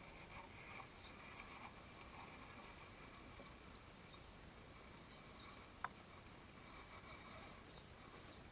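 Near silence: faint outdoor background hiss, with a single sharp click about six seconds in.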